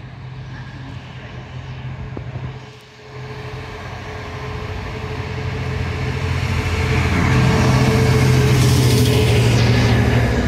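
Diesel freight locomotive hauling an intermodal container train approaches and passes. Its engine drone grows steadily louder and peaks near the end as the locomotive goes by, then the container wagons run past.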